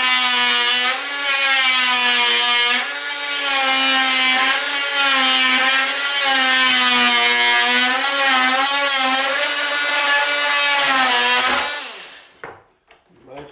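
Craftsman oscillating multi-tool with a serrated cutting blade, buzzing as it cuts through wood, the blade held flat on a scrap spacer to undercut a board. The buzz wavers in pitch as the blade bites and eases, then stops about twelve seconds in.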